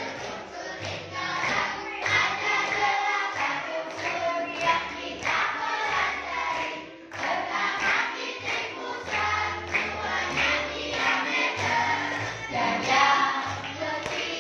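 Children singing along in chorus to a recorded song about the parts of a circle, clapping in time, over a backing track with a steady beat.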